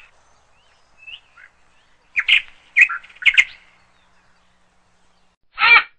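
Birds chirping in short groups of quick calls, with a single lower call near the end.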